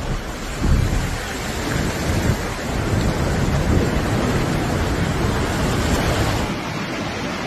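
Steady rush of a river in flood, with heavy wind rumble on the phone's microphone; the rumble eases a little about six and a half seconds in.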